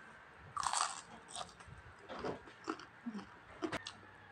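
Crisp bites and chewing of fried danggit (dried fish) close to the microphone. The loudest crunch comes about half a second in, followed by several shorter crunches.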